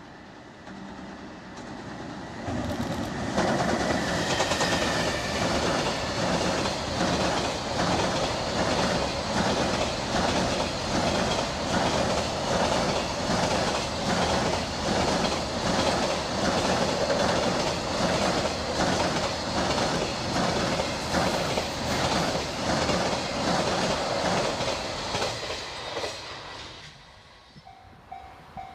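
A long container freight train hauled by a JR Freight EF210 electric locomotive rumbles across a steel girder bridge. The sound rises as it nears, then for about twenty seconds the wheels clack in a steady rhythm over the rail joints, and it fades near the end. Right at the close a level crossing bell starts ringing in quick repeated chimes.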